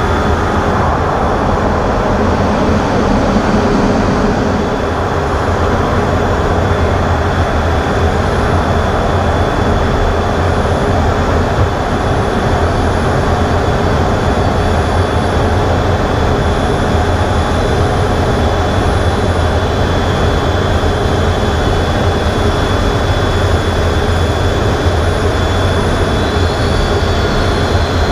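Cockpit noise inside a Boeing F/A-18E/F Super Hornet in flight: a steady, loud wash of jet engine and airflow noise with a strong low drone and a few faint, steady high whines. It holds even throughout, with no change in power.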